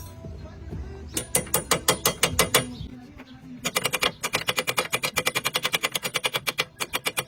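Socket ratchet wrench being cranked, its pawl clicking in quick even runs: a short run of clicks about a second in, then a longer, faster run of about ten clicks a second.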